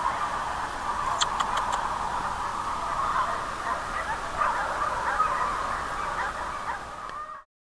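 A steady chorus of many dogs barking and yelping in the distance, with a few short clicks a little over a second in. The chorus cuts off suddenly near the end.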